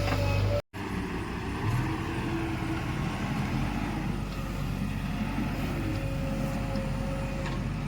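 JCB 3DX backhoe loader's diesel engine running steadily, with a faint steady whine over the low rumble. The sound drops out completely for a split second less than a second in.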